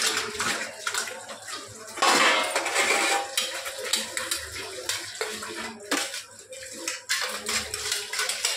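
Stainless steel plates clinking and clattering against each other in a sink as they are rinsed by hand under a running tap, with water splashing and pouring. The splashing is loudest about two seconds in.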